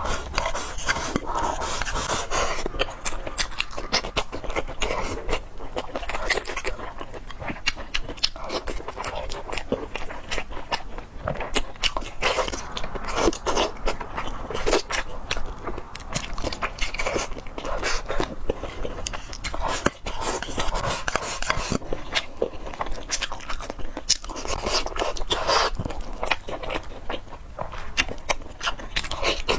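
Close-miked eating sounds: a person chewing and biting food, with many small wet clicks and scrapes.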